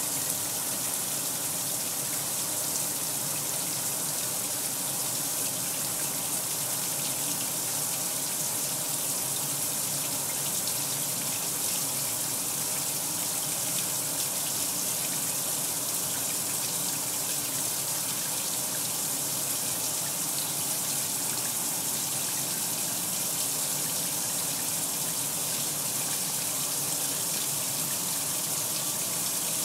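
Kenmore 800 Series top-load washer filling, water gushing steadily into the tub through the fill valve.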